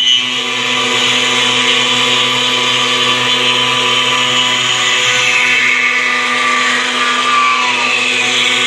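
CNC router spindle machining wood: a steady, loud, high whine from the spindle and cutter. Its pitch sags slightly about seven seconds in.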